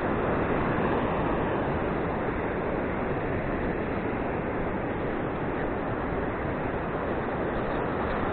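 Steady, even noise of ocean surf and wind.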